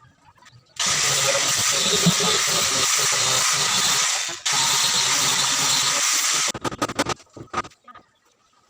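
Paint spray hissing in a long, steady burst with a brief break about halfway, then several short spurts before it stops.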